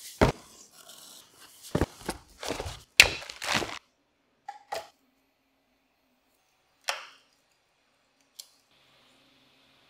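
Handling sounds of a cardboard filament box being opened and a filament spool being moved: a run of sharp knocks, taps and scrapes over the first four seconds, then a few separate clicks. A faint steady hum begins near the end.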